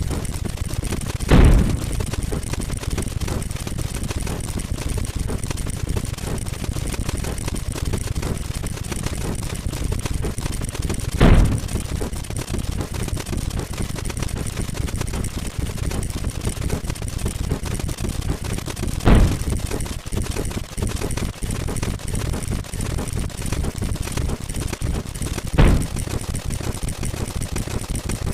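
Counting sound effects: a dense, machine-gun-fast stream of clicks with four louder thuds, coming at shortening intervals about a second in, near 11 s, near 19 s and near 26 s.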